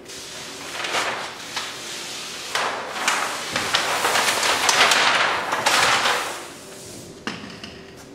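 Crinkling and rustling of a large sheet of clear plastic paint protection film being handled, with many sharp crackles, loudest in the middle.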